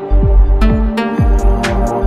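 Electronic instrumental background music with a steady beat: deep bass notes that slide downward in pitch, held synth tones and crisp high percussion hits.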